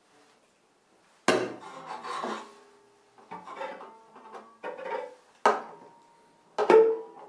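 Cello struck with its wooden bow: five sharp wooden knocks about a second apart, each leaving a brief ringing of the strings, the last the loudest.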